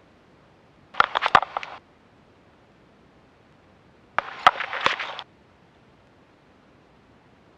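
Two short bursts of rustling and clicking handling noise, about three seconds apart, picked up through the cockpit intercom headset microphones while headsets and seat belts are being changed.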